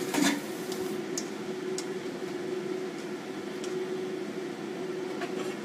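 Steady whirring hum of a kitchen fan, with a few faint clicks of chopsticks against the pan as vermicelli and fuzzy melon are stirred.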